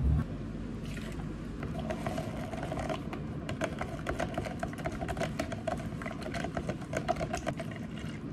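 Long metal bar spoon stirring chocolate sauce into espresso in a plastic cup, a rapid run of light clinks and clicks against the cup wall. A brief thump at the very start.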